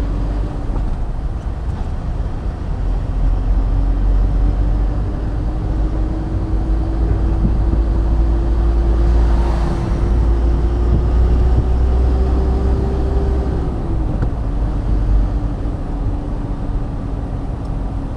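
A car driving, with a heavy steady low road rumble and an engine hum that slowly rises in pitch, then drops away about fourteen seconds in.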